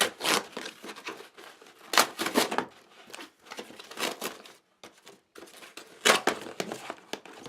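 A parcel's packaging being torn open and crinkled by hand: several sharp rips, with softer rustling between them.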